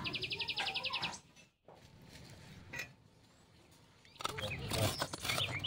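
A bird's fast, even trill for about a second at the start, then faint background, and bird chirps with a few sharp clicks near the end.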